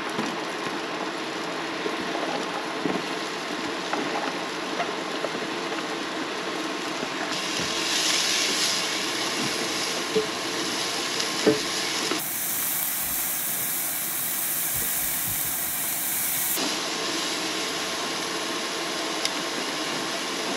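Vegetables and garlic sizzling in oil in a hot pan, a steady hiss with a few light clicks and knocks. About halfway through, a harsher hiss starts abruptly, lasts some four seconds and cuts off.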